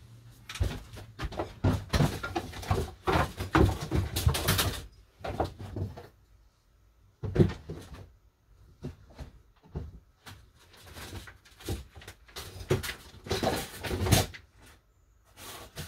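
Knocks, clatter and scrapes of wooden rods and boards being handled and moved, in three busy stretches: through the first few seconds, a short burst about halfway, and again near the end.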